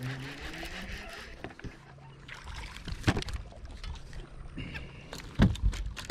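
Irregular knocks and clicks of a just-landed largemouth bass being handled aboard a bass boat, with a sharper knock about three seconds in and a heavier thump about five and a half seconds in.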